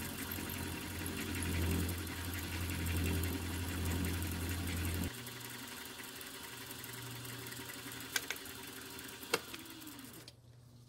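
A small milling machine running, its 4-flute end mill cutting a slot through 1/8-inch steel plate in a single pass. The steady hum drops suddenly in level about five seconds in, two sharp ticks come near the end, and the sound falls away just before the end.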